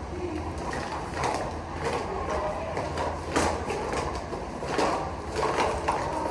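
Ride noise inside a moving vehicle: a steady low rumble with irregular rattling and clattering.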